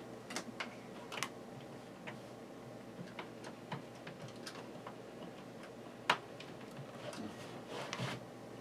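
Irregular light clicks and taps, one sharper click a little past the middle, over a faint steady hum.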